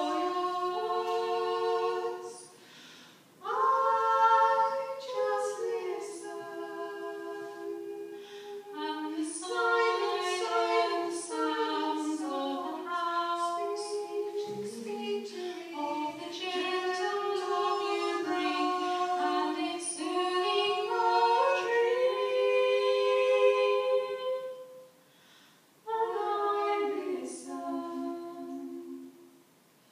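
Two women singing unaccompanied in two-part harmony, their voices moving together in long held phrases, with a short break between phrases about three seconds in and again about twenty-five seconds in.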